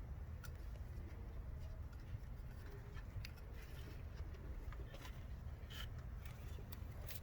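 Scattered light clicks and rubbing as a rubber hose and its clamp are worked onto a fitting by hand, over a steady low rumble.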